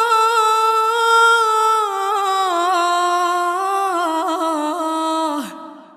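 A woman's voice in melodic Quran recitation (tajweed), holding one long drawn-out vowel with small ornamental turns while the pitch steps slowly downward. It fades out about five and a half seconds in for a breath.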